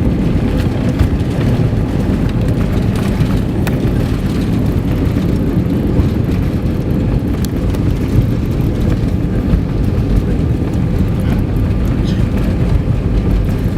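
Steady low rumble of cabin noise aboard an Airbus A320 in motion, with a faint steady hum above it.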